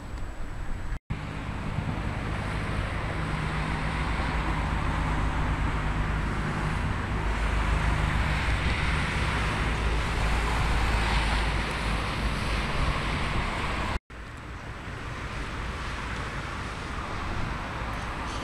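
Road traffic driving past on a busy road: tyre and engine noise of passing vehicles swelling and fading away. The sound cuts out briefly twice.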